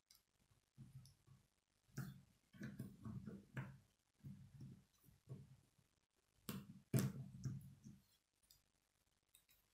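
Plastic K'nex pieces clicking and rattling as they are handled and snapped together, in irregular clusters, with sharper snaps about two seconds in and again about seven seconds in.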